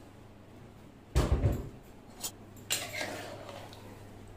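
A spoon stirring rice into broth in a pressure cooker pot, knocking and scraping against it. There is a loud knock and clatter about a second in, a sharp click near the middle, then more scraping and knocks.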